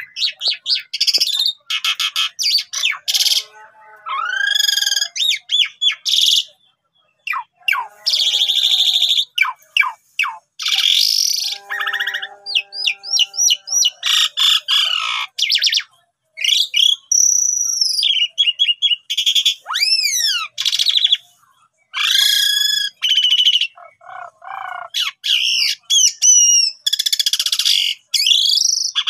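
Javan pied starling (jalak suren) in full song: a long, varied run of clear whistles, rising and falling glides and rapid buzzy rattles, with only a few short breaks.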